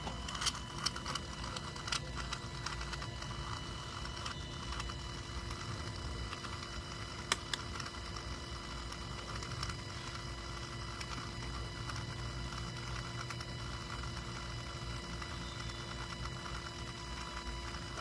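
Electric diesel fuel lift pump on a 2008 Ford F-250 6.4L running with a steady hum while the fuel system is bled of air, with scattered light ticks and clicks.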